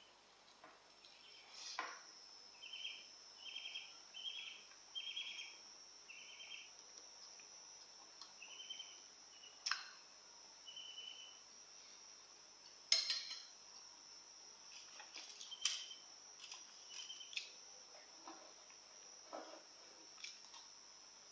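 Faint clinks of a spoon against a small dish during eating: a handful of sharp, separate clicks. Behind them, a steady high-pitched whine and a run of short, evenly spaced chirps over the first half.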